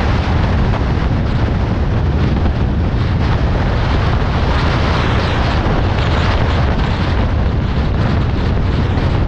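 Loud, steady rumble of wind and road noise from a car driving at speed, heaviest in the low end, with wind buffeting the microphone.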